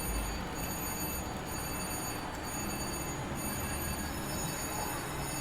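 Steady din of a casino floor: many slot machines chiming and humming together in the background, with no single sound standing out.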